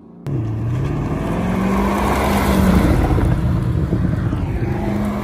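A car engine accelerating away, its revs climbing over the first second or so and then holding steady.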